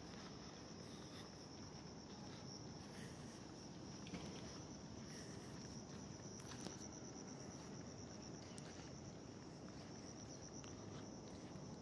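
Faint insect song in garden greenery: a continuous high trill with a fine pulse, over a low background hum. Two faint taps cut through it partway in.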